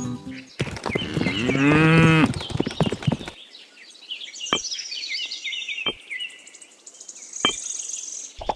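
A cow moos once, one long call. Small birds then chirp, with three sharp clicks among the chirps.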